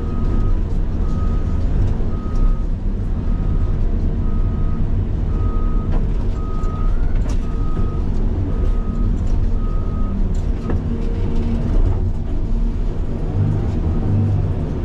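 Caterpillar 336 excavator's diesel engine running steadily under load, with a few sharp knocks of the machine working. A backup-style alarm beeps evenly, under twice a second, until about ten seconds in, then a lower-pitched beep takes over.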